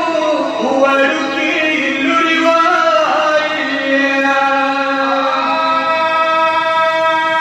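Male reciters (zakirs) chanting a devotional lament in long, drawn-out held notes that slide up and down between pitches, amplified through a microphone.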